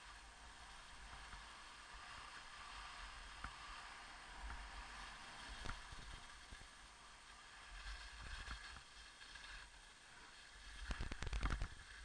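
Skis sliding and scraping over packed snow, a soft steady hiss heard through an action camera, with a quick burst of knocks and scraping near the end.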